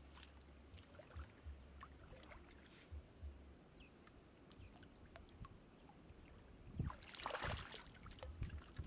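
Shallow lake water sloshing and dripping faintly as a person wades and dips a mesh net bag, with small scattered splashes and a louder splash about seven seconds in.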